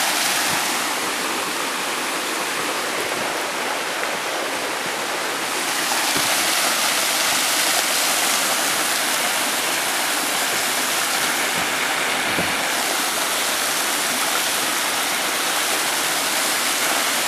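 Waterfall rushing: a steady, even hiss of falling water, growing a little louder about six seconds in.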